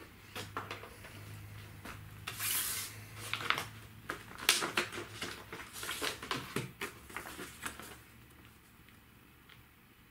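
Handling noise: a power cable set down on a computer case, then a plastic document folder opened and sheets of paper pulled out, making irregular clicks, knocks and rustling swishes. The handling stops about eight seconds in.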